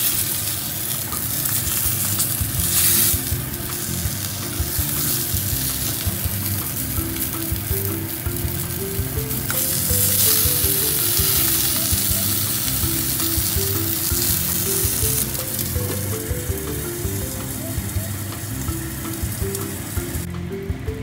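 Dried horse mackerel sizzling as it cooks: a steady crackling hiss that swells a few times, loudest about ten seconds in.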